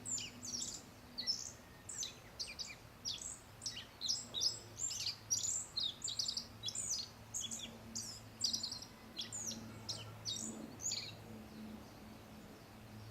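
Black-faced bunting singing: a quick run of short, high, sharply falling notes that stops about eleven seconds in.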